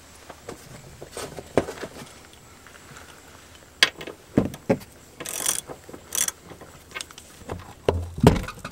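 Hand socket ratchet on an extension clicking in short spells as a bolt is turned under a minivan, with scattered knocks of tools and metal; the loudest knock comes near the end.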